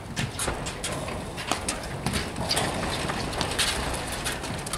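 Platform tennis rally: solid paddles popping a rubber ball in several sharp knocks, with the ball bouncing on the court deck and the players' shoes scuffing and stamping on the deck.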